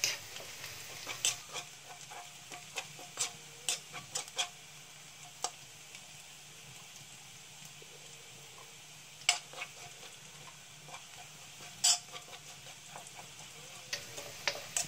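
Minced garlic sizzling softly in olive oil in a metal wok, frying toward golden brown. Over it a metal ladle stirs, scraping and clinking against the wok in irregular strokes, with a few louder knocks.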